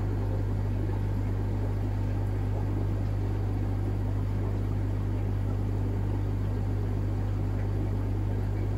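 Aquarium air pump humming steadily, with the gurgling of an air-driven sponge filter's bubble stream in the tank.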